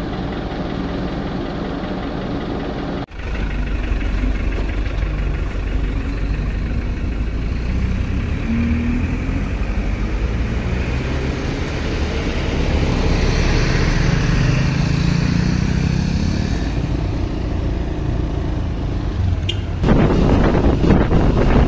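Heavy diesel engine running steadily, with a brief break about three seconds in. Near the end a louder rush of wind-like noise comes in over it.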